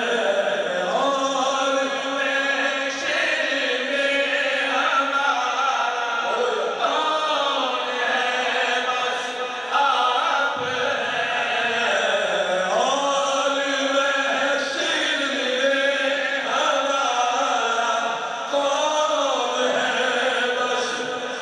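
Unaccompanied male voices chanting an Urdu naat, a chorus holding the refrain in long, wavering sung lines. The lead singer's voice comes back in near the end.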